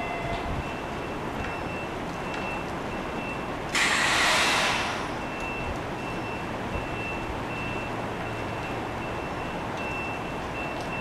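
A commuter train standing at a station platform: a sudden loud hiss of released air about four seconds in, fading over about a second and a half, as from the air brakes venting. A faint, high single-pitched beep repeats about once a second over a steady low background.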